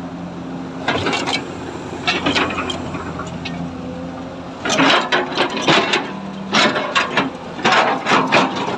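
Hyundai 210 excavator's diesel engine running with a steady hum, overlaid by bursts of sharp metallic knocks and clatter from the machine about a second in, around two seconds, and more densely from about five seconds on.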